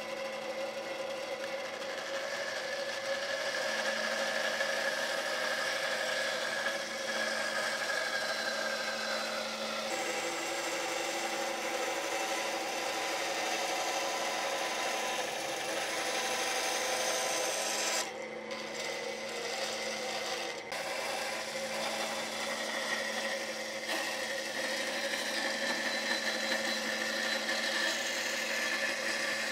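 Bandsaw running steadily, its blade cutting a curve through thick pine boards: a held machine hum under the hiss of the cut. The hiss thins for a couple of seconds about two-thirds of the way through.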